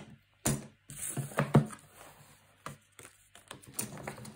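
Paper and card being handled on a wooden tabletop: a string of light knocks and taps with some rustling, the sharpest knock about a second and a half in.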